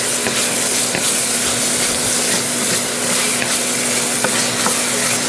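Diced pineapple sizzling and crackling in a pan as the last of its sugar syrup cooks away, with a spatula stirring and scraping through it. The sizzle is the sign that the pineapple has reached the point for the filling.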